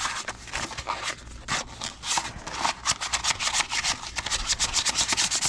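P600 sandpaper rubbed dry by hand over a plastic car door handle to scuff it for paint, in quick scratchy back-and-forth strokes. The strokes become faster and more even about halfway through.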